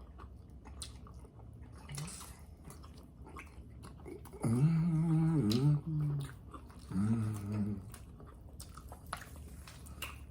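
Chewing and small mouth clicks of someone eating barbecue pork ribs off the bone, with two low hums, a long one midway and a shorter one a little later.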